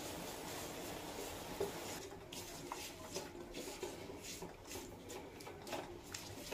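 Silicone spatula stirring and scraping atta (whole-wheat flour) roasting in ghee in a nonstick frying pan: soft, faint scraping strokes, separating into about two or three a second from about two seconds in. The flour is browning after some eight to ten minutes over a low flame.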